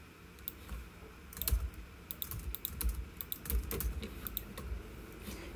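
Typing on a computer keyboard: a run of quick, irregular key clicks, a few at first and then a steady flurry from about two seconds in.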